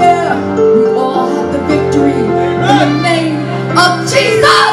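Music: a voice singing over sustained, steady chords.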